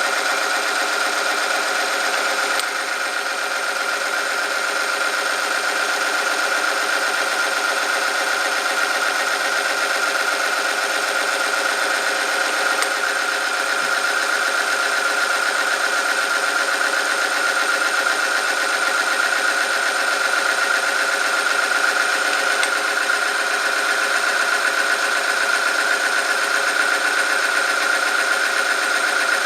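Oil film-strength test machine running: its electric motor spins a steel part against a loaded metal sample lubricated with 10W40 motor oil at 100°C. The sound is a steady high whine of metal rubbing under load. It dips briefly about three seconds in, then grows slightly louder.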